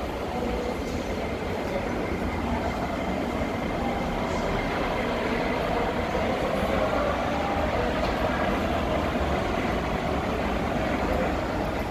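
Steady mechanical rumble and hum of an underground metro station concourse, train and machinery noise carrying through the hall.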